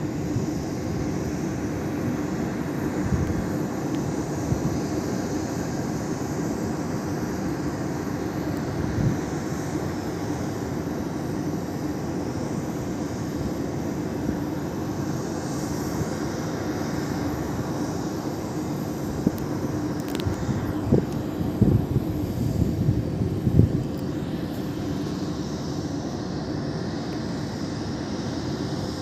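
Steady jet aircraft noise from an Emirates Boeing 777-300ER's GE90 engines: a constant rushing hum with a held tone in it. A run of low thumps comes about twenty seconds in.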